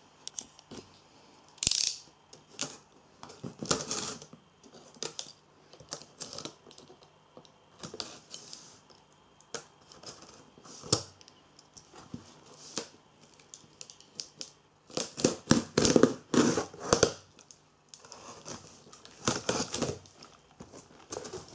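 A cardboard box being opened: a utility knife slitting the packing tape, then hands working the cardboard flaps. Irregular scrapes, rustles and clicks, busiest a little past the middle and again near the end.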